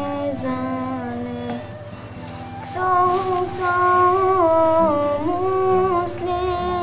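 A girl's solo voice singing an ilahi, an Islamic devotional song, in long held notes that glide from pitch to pitch. It is softer for a moment about two seconds in, then fuller.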